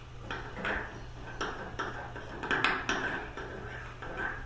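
A utensil clicking and scraping against a bowl while stirring a sticky slime mixture of white glue and shaving foam, in irregular strokes about two or three a second.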